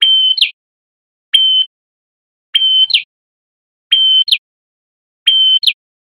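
A male prenjak kepala merah, a small rufous-headed songbird, calling loudly in a steady repeated phrase, five times. Each phrase is a short held whistle that ends in a quick, sharp downward note, about one every 1.3 seconds.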